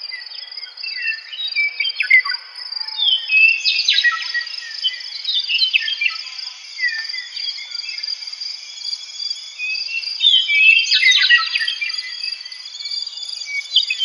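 Meadowlarks singing: short runs of clear, slurred whistles that slide down in pitch, in louder bursts about four seconds in and again near eleven seconds. A steady high insect drone runs beneath.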